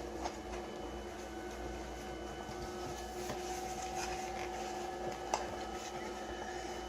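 Steady electrical hum with a few faint clicks, the sharpest a little past five seconds in.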